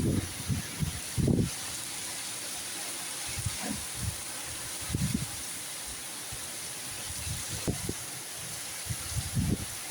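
Heavy rain falling, a steady hiss, with short low bumps on the microphone every second or two.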